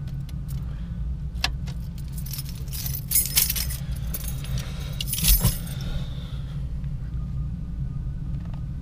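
Honda Civic engine idling, heard from inside the cabin as a steady low hum, with keys jangling several times, loudest about three and five seconds in.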